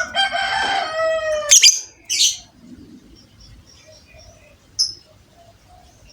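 Lovebird calling: a long buzzy call about a second and a half long, then two sharp shrill shrieks. A single short chirp follows near the end, with faint soft chirps in between.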